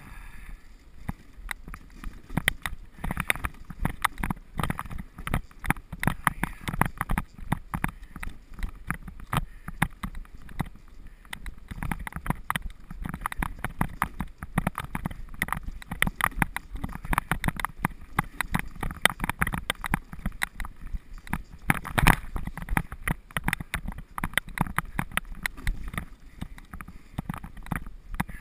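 Wooden dog sled running over a snow-packed trail: a constant irregular crunching and scraping from the runners on the snow, with the sled rattling. One sharper knock comes in the later part.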